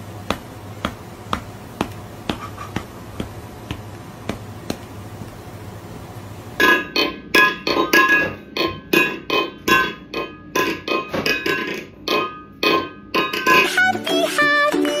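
Edited-in meme audio. For the first six or so seconds there is a steady run of sharp taps, about two a second, over a low hum. Then loud rhythmic music comes in suddenly, and near the end it switches to a different tune.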